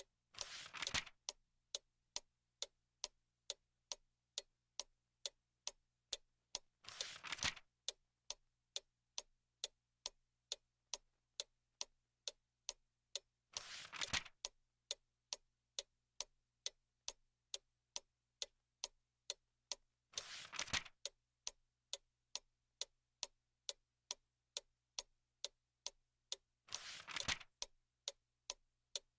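A clock ticking evenly at about two ticks a second, with a short swish of noise recurring about every seven seconds.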